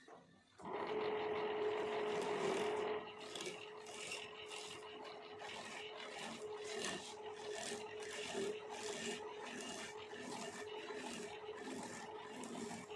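Wood lathe running with a steady hum while a cutting tool scrapes against the spinning wood, loudest for the first couple of seconds, then in repeated strokes about twice a second.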